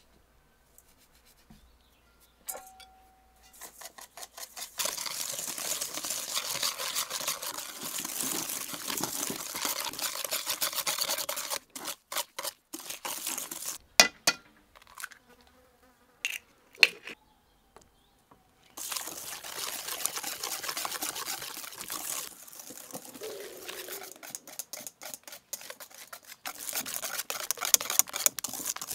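A wooden spoon creaming butter and sugar in an enamel bowl, making a steady gritty scraping. About halfway through come a few sharp taps as an egg is cracked on the bowl's rim, then a wire whisk beats the mixture in quick, rhythmic strokes.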